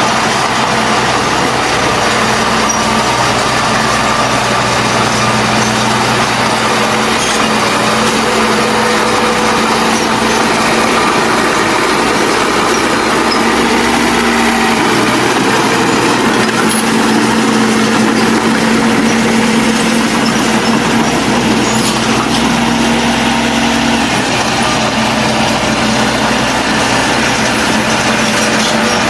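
Diesel engine of heavy earthmoving machinery running steadily, its note shifting a little about halfway through.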